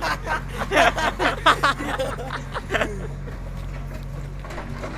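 JCB 3DX backhoe loader's diesel engine running with a steady low hum, and men's voices over it for about the first three seconds.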